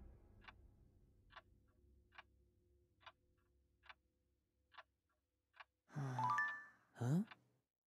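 Clock ticking faintly and slowly, a little under once a second, in a hushed room. Near the end two short vocal sounds, a sigh and a brief 'hm', break in.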